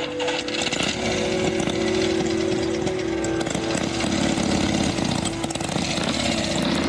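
Motorcycle engine running loud and steady close by.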